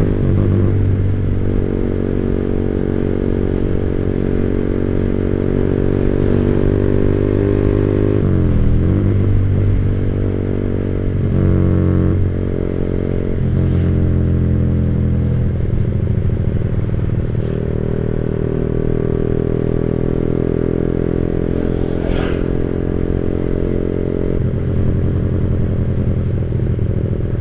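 Motorcycle engine running through a 25 cm WRX GP5 aftermarket exhaust with a half baffle, mostly at a steady note. About eight and a half seconds in, the pitch dips briefly and rises again, and the note shifts a few times between about 11 and 14 seconds in.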